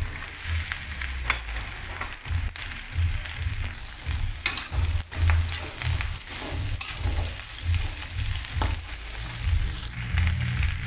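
Shredded cabbage sizzling in hot oil as it is stir-fried in a metal wok, with a metal spatula scraping and clacking against the pan every second or so. A patchy low rumble runs underneath.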